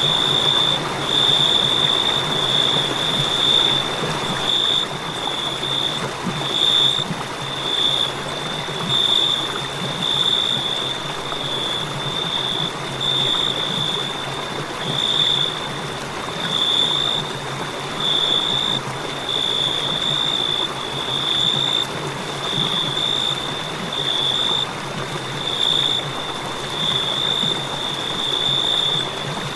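Crickets chirping: a continuous high-pitched trill that swells and dips every second or two, over a steady background hiss.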